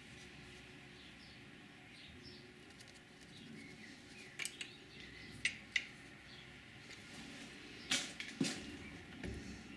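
A few sharp metallic clicks and taps from small tools and parts being handled while the lathe's carriage stop is set by its adjusting bolt. The loudest pair comes near the end, over a faint steady background hum.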